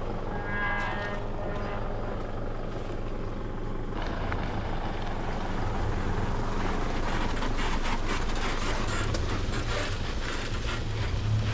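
A vehicle driving, with a steady low engine and road rumble. A short pitched tone comes near the start, and from about four seconds in there is rougher crackling road noise.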